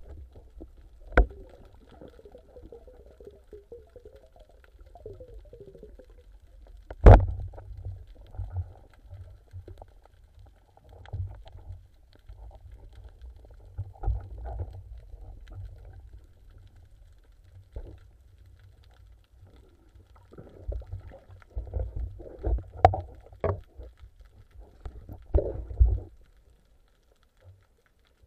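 Muffled underwater sound during spearfishing: a low rumble of water against the camera, with scattered knocks and clicks from the speargun and from handling the speared fish. The loudest is a sharp crack about seven seconds in.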